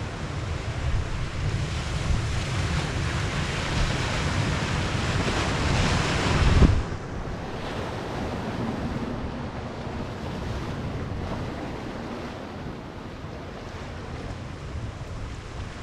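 Surf washing onto a rocky cobble shore: the rush of a wave builds for several seconds, peaks about six and a half seconds in, then drops away sharply into a lower wash, with wind buffeting the microphone.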